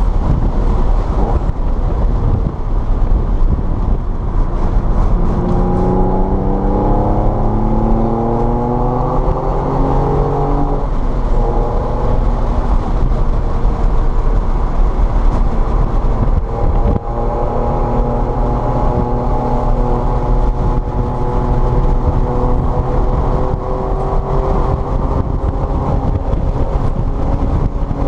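Car engine under way on a wet race track: its note rises as it accelerates about five seconds in, drops away around ten seconds, then pulls steadily and climbs slowly again from about sixteen seconds. A steady low rumble of road and wind noise runs underneath.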